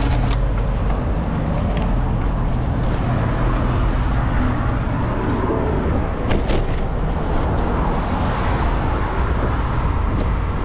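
City traffic and road noise, a steady low rumble throughout, with a low hum for the first few seconds and two sharp clicks a little past six seconds in.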